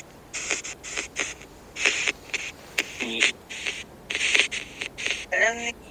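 Ghost-box (spirit box) app on a phone sweeping through radio noise: choppy bursts of static, several a second, broken by brief snippets of a voice about three seconds in and again near the end.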